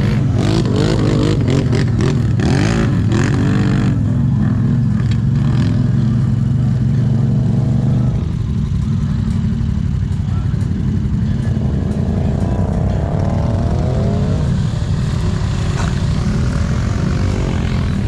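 ATV engine running steadily, its level dropping slightly about eight seconds in.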